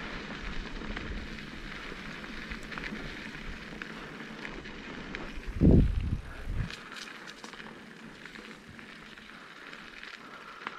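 Mountain bike rolling over a dirt trail: crunching tyre noise with small rattling clicks. A little past halfway comes a loud low thump and a smaller one after it, then the low rumble falls away.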